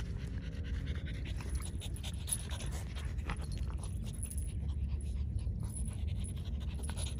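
French bulldogs panting during rough play-wrestling.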